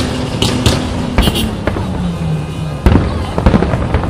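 Fireworks going off: a series of sharp bangs and crackles, several in the first second and a half and another cluster about three seconds in, with a sustained low tone underneath.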